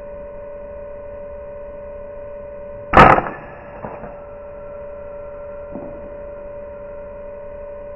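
Single shot from an FX Dreamline Pup .22 air rifle about three seconds in, followed by a fainter knock about a second later. A steady high hum runs underneath.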